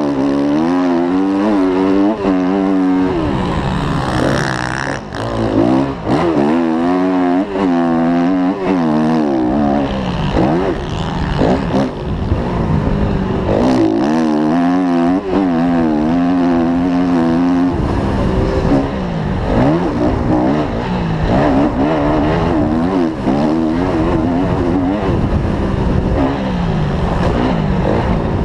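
Dirt bike engine revving hard, its pitch climbing and dropping again and again as the rider opens and closes the throttle through corners and straights, heard close up from the rider's helmet camera.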